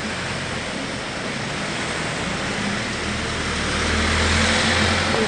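Steady rushing background noise of a market hall. A low hum swells about three seconds in and fades near the end.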